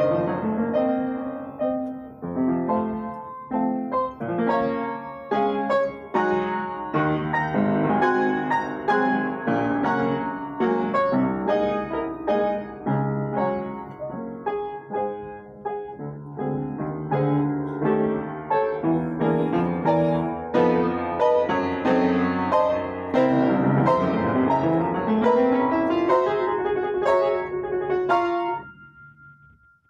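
Solo piano played with many quick notes and chords. About three-quarters of the way through, a sweeping rising run leads into a held chord that rings on and then dies away shortly before the end.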